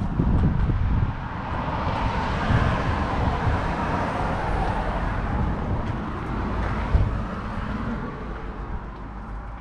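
A passing road vehicle: its noise swells over a few seconds and then fades away, over a low, unsteady rumble of wind on the microphone.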